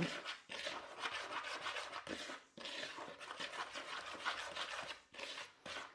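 Dry flour and salt being stirred in a bowl: a scraping, rubbing sound of repeated strokes, with short breaks about two seconds in and near the end.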